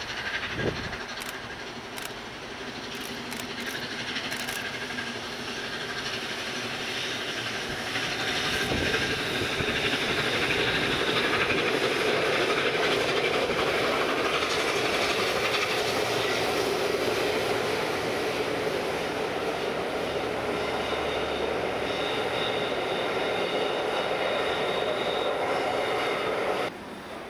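A train rolling past on the line, its wheels running on the rails. The sound builds over the first several seconds, then holds steady, with a faint high wheel squeal now and then.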